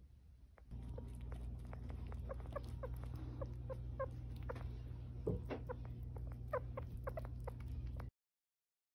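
Sugar gliders chirping: many short, high chirps with small clicks over a steady low hum, the happy chirping they make while eating. It cuts off suddenly about eight seconds in.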